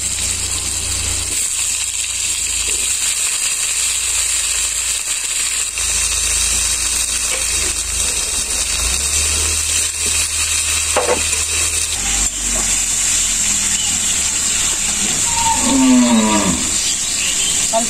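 A cow mooing once, a single call falling in pitch, about three-quarters of the way through, over a steady high hiss.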